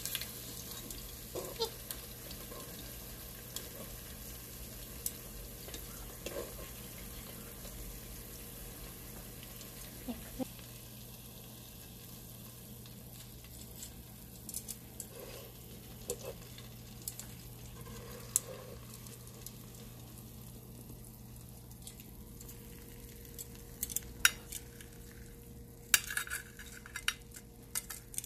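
Crappie frying in hot oil in a pan, a steady sizzle, with scattered clicks and scrapes of a utensil against the pan that come more often near the end.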